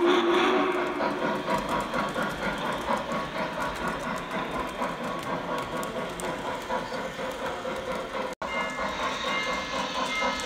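O scale model steam locomotives running on the layout track: a steady whistle tone fades out in the first second, then the rhythmic rumble and clatter of the running trains continues. The sound cuts out abruptly for an instant about eight seconds in.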